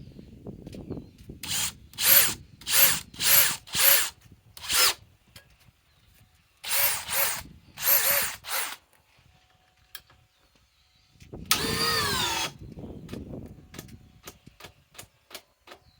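DeWalt DCD805 cordless drill motor spinning up in short bursts, about nine times, each cutting out within a fraction of a second, then one longer run of about a second that falls in pitch. It is running on a Flex battery through an adapter, which the owner takes for too much voltage for the drill. Light clicks follow near the end.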